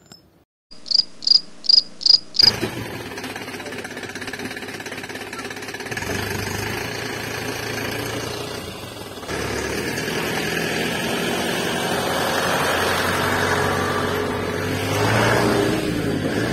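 Five quick clicks, then a small motor of a homemade mini water pump running with a steady drone and hum. The drone steps up in level twice, rises near the end, then cuts off abruptly.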